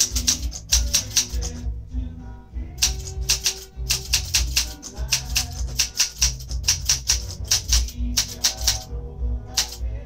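Olympia SM8 manual typewriter being typed on: quick runs of key strikes with short pauses between words, over music with shifting low tones.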